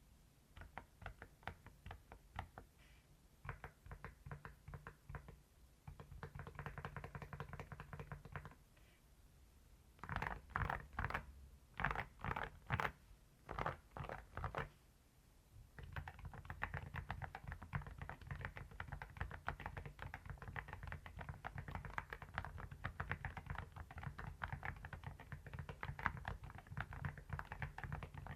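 A mechanical keyboard fitted with AKKO Rosewood semi-silent linear switches being typed on, the keystrokes muted and soft-bottomed. Scattered presses come first, then a brief lull, then a run of louder, heavier strokes in groups. Fast, continuous typing fills the second half.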